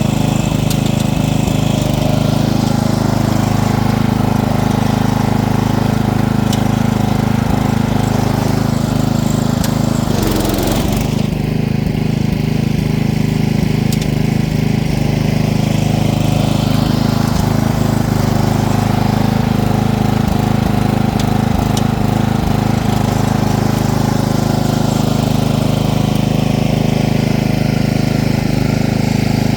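Small engine of an off-road vehicle running steadily at a fairly even pitch, with a brief rushing hiss about ten seconds in.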